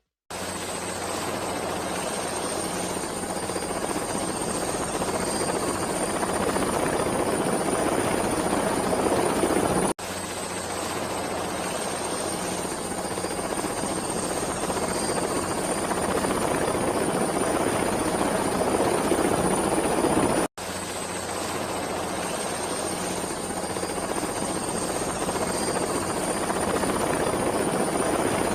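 Helicopter sound running steadily, with a thin high whine that creeps up slightly in pitch. It is a loop of about ten seconds that cuts out briefly and restarts twice.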